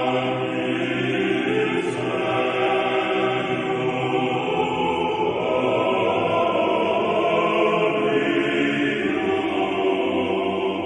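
Choir singing Orthodox liturgical chant in long held chords that change a few times.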